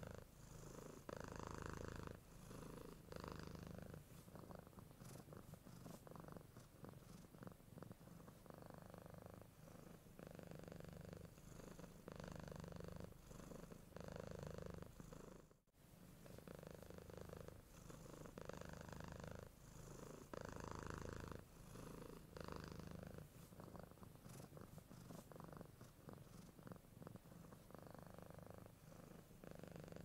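Domestic cat purring, faint and continuous, swelling and easing with each breath in and out. It cuts out for a split second about halfway through.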